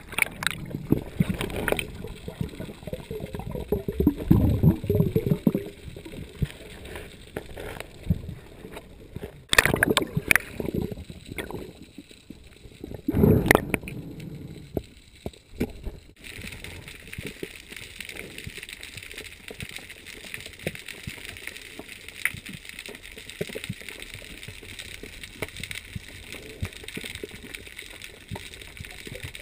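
Muffled water sound heard underwater through an action camera's housing: gurgling and sloshing with irregular knocks and thumps in the first half, then a steadier, quieter hiss from about halfway through.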